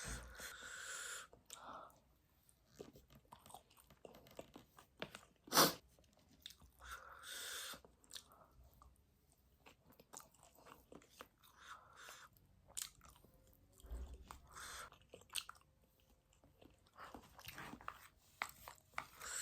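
Close-mic eating sounds of a person eating spicy noodles: intermittent wet chewing and mouth noises, with a few short noisy bursts and one sharp click about five and a half seconds in.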